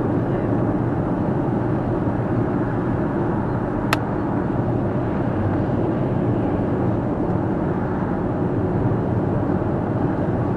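Steady road and tyre noise of a car driving at highway speed, heard from inside the cabin, with a single sharp click about four seconds in.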